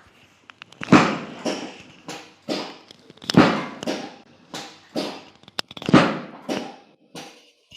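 A steady series of sharp slaps or thumps, about two a second, some much louder than others.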